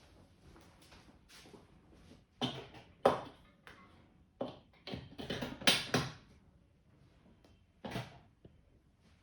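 Hands working over a customer's head and neck in a barber's head massage: irregular bursts of rubbing and slapping on skin and hair. There is one cluster a couple of seconds in, a longer one in the middle and a short one near the end, with quiet in between.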